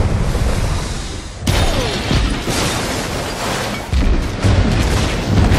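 Film sound effects of a nuclear blast shockwave sweeping through a town: a loud, continuous rushing rumble of blast wind and flying debris, heaviest in the deep bass. It surges again about a second and a half in and once more near four seconds.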